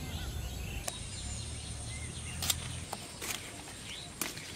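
Rural outdoor ambience: a low rumble that drops away about three seconds in, faint bird chirps, and a few sharp clicks.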